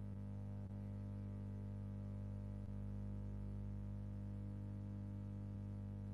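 Steady low electrical hum on the audio line, one even drone with no change, with two faint clicks about a second and three seconds in.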